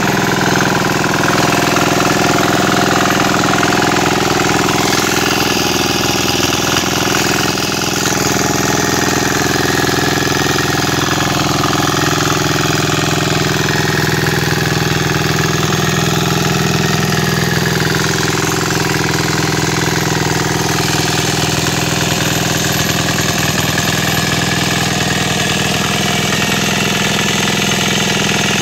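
Single-cylinder air-cooled 173F diesel engine of a walk-behind mini tiller running steadily under load while its rotary tines dig through dry soil.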